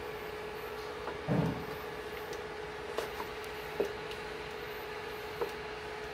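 A spatula stirring thick sauce in a stainless steel pot, knocking against the pot a few times, the first knock the loudest. Underneath runs a steady hum from the induction cooktop heating the pot.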